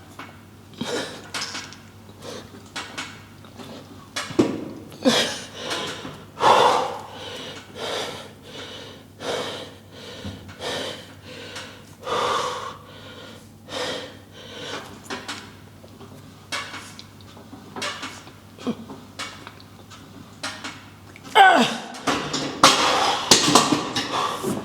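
A man breathing hard and fast under the strain of a heavy leg press set, one forceful breath about every second or so. Near the end the breaths turn louder and more strained.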